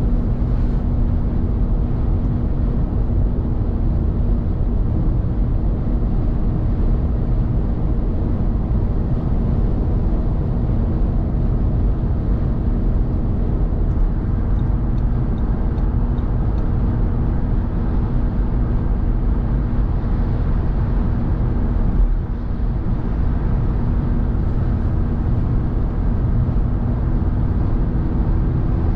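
Car driving at motorway speed: steady tyre and road noise with engine drone and a steady low hum. There is a single thump about 22 seconds in, and a second, higher hum joins near the end.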